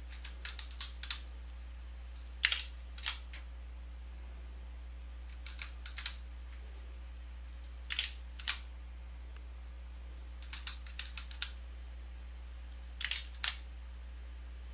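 Computer keyboard typing in short bursts of a few keystrokes with pauses between, over a steady low electrical hum.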